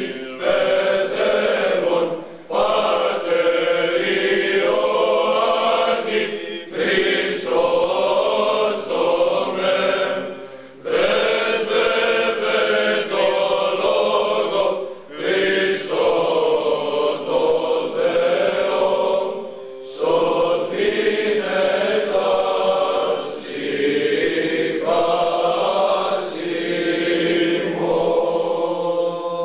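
Greek Orthodox Byzantine chant sung by a group of male voices, in phrases a few seconds long with short breaks between them.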